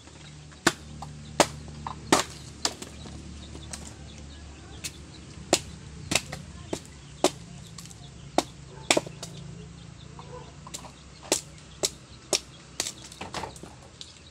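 A bolo knife being driven into an upright length of bamboo to split it: about twenty sharp chopping knocks at irregular intervals, roughly one every half second to a second.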